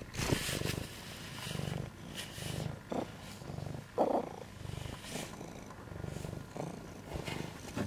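Domestic cat purring close to the microphone, the purr swelling and fading about once a second with its breathing, with a few short rustles as it moves about.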